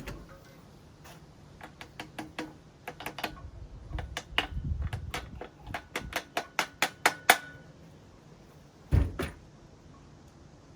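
Hard parts of a RockShox Judy suspension fork clicking and knocking as they are handled and fitted by hand. A quick run of sharp clicks builds up in the middle, the last one ringing briefly, and a heavier thud comes near the end.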